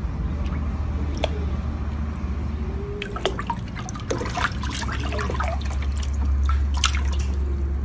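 Water splashing and slapping in a plastic tub as a cat paws at a live fish and the fish thrashes, the splashes coming thick and fast in the second half, over a steady low rumble.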